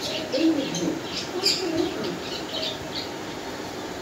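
A pigeon pecking at wheat grains in a plastic bowl: a busy run of short, grainy clicks. Soft pigeon cooing comes and goes underneath.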